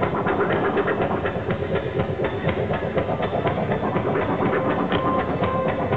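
Live electronic rock band playing loud through a festival PA, heard from the crowd: a fast, clattering, machine-like beat under a dense wash of distorted noise. About five seconds in, a synth melody line enters.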